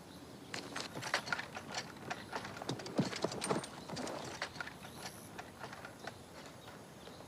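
A loose, uneven clatter of knocks and clicks, spread through the whole stretch with no steady rhythm.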